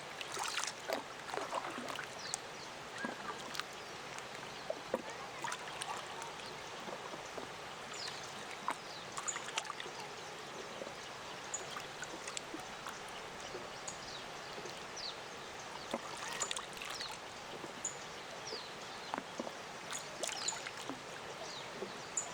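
Small waves lapping at a lakeshore with many little splashes, over a steady rushing hiss from a distant waterfall. A few short, high bird chirps come in now and then.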